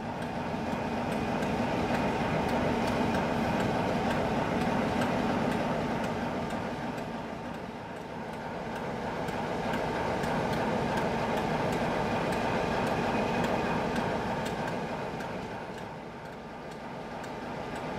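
Diesel locomotive engine running with a steady drone that swells and eases twice, with a regular light ticking over it.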